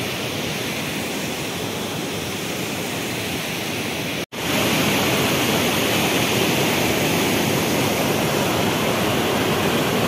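Large waterfall in full flow: a steady rushing of falling water. About four seconds in it cuts out for an instant and comes back louder.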